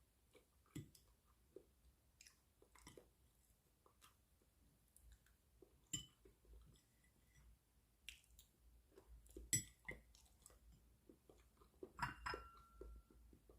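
Faint eating sounds: quiet chewing with scattered small clicks and taps, and a short ringing clink near the end.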